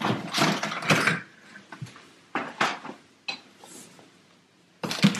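Boxed Christmas ornaments and their packaging rustling and clinking in a cardboard box as hands rummage through it, in several short irregular bouts.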